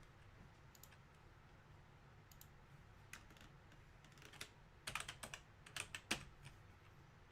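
Faint typing on a computer keyboard: scattered key clicks, with a quick run of taps about five to six seconds in.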